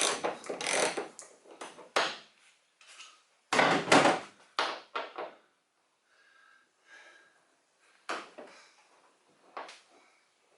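Hand tools and metal and plastic interior parts knocking and clattering while a car's upper seatbelt hardware is being removed: irregular sharp knocks, the loudest cluster about four seconds in, then quieter scrapes and a few knocks.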